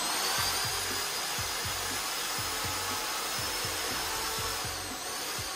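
Electric drill running at high speed, spinning a paint-covered canvas for spin art: a steady high whine over a rushing noise, wavering in pitch near the end.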